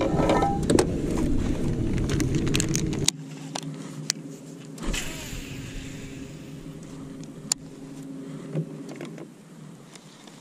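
Electric trolling motor humming steadily on a jon boat, under heavy wind rumble on the microphone that stops abruptly about three seconds in. A brief hiss about five seconds in and small scattered clicks come from the baitcasting rod and reel being cast and handled.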